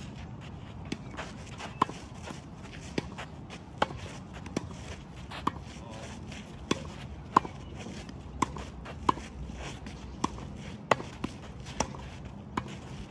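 Tennis rally on a clay court: a ball struck back and forth by rackets, sharp pops about once a second, some coming in quick succession, with softer ball bounces and footsteps between.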